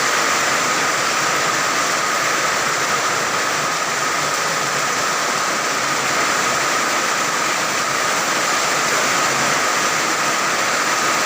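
Heavy tropical downpour in strong wind, a dense, steady hiss of rain.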